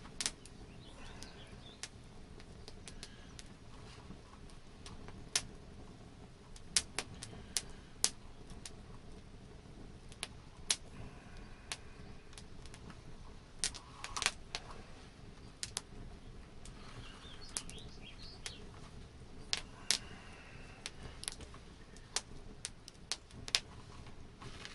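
Hand-stitching a pouch with a bone needle and gut sinew: scattered sharp clicks and ticks as the needle and sinew are worked through the punched holes. Faint bird chirps come in now and then.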